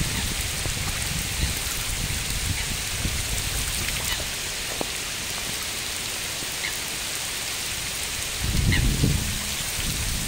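Heavy rain falling on a lake: a steady hiss of drops striking the water. A low rumble comes in about eight seconds in.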